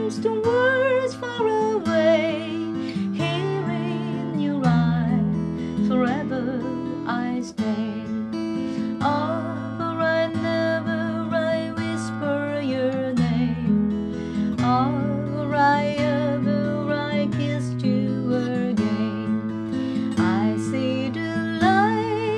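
Steel-string acoustic guitar strummed and picked over accompanying music that carries a wavering melody line with vibrato: an instrumental passage between sung verses.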